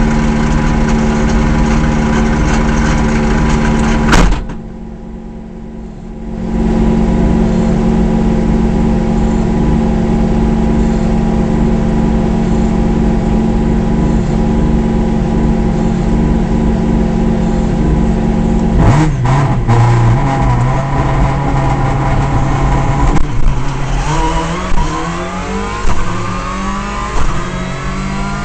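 Subaru Impreza S14 WRC rally car's turbocharged flat-four engine running steadily at the start line, heard from inside the cabin, with a sharp click about four seconds in and a couple of quieter seconds after it. Near the end the car pulls away, the engine rising in pitch several times through successive gear changes.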